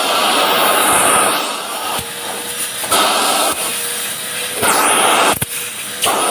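Vacuum cleaner running loudly, its whooshing suction rising and falling several times as the nozzle is worked.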